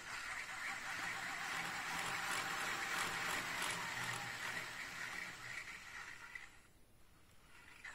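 Model steam locomotive (Train Line 45 HSB Mallet, 45 mm gauge) running on its track: the motor and gearing whir together with the fan of its pulsed smoke generator, which puffs in time with the wheels. The sound dies away about six and a half seconds in as the loco and fan wind down.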